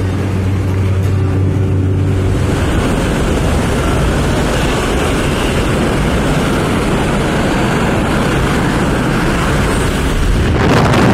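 Jump plane's engine droning steadily inside the cabin, then, about two and a half seconds in, a loud rush of wind through the open door as the skydivers exit. Near the end it turns into heavy wind buffeting on the microphone in freefall.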